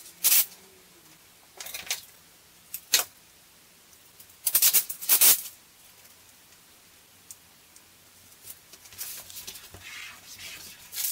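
Tape being worked by hand on cardboard: several short bursts of peeling and rustling as backing is pulled off strips of magnetic tape and the strips are pressed onto a cardboard panel, with a longer stretch of rustling near the end.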